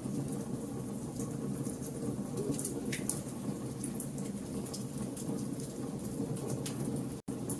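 Campfire of burning logs crackling: scattered sharp snaps and pops over a steady low rumble of the flames. The sound cuts out for an instant near the end.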